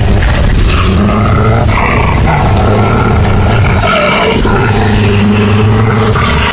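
Wolves growling and snarling over a pile of raw meat, a food-guarding warning as a Tibetan mastiff stands close. The growling is continuous, with pitch wavering up and down.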